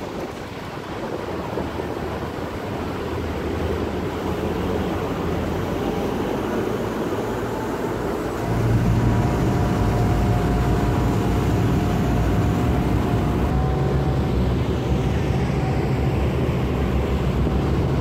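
Passenger boat under way: its engine drones under a steady rush of wind and water. About halfway through, the low engine hum gets louder and steadier, with a faint whine above it.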